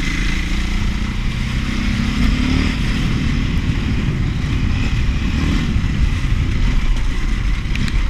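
A KTM 530 EXC-R dirt bike's single-cylinder four-stroke engine running under way. The revs climb about two seconds in, then rise and fall with the throttle over a heavy low rumble of wind on the microphone.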